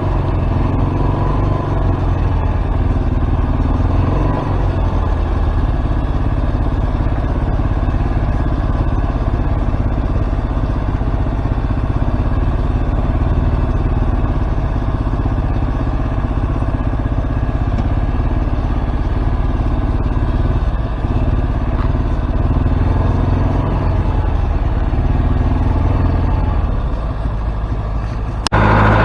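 Tractor engine running steadily while pulling a six-furrow disc plough. The sound changes abruptly just before the end.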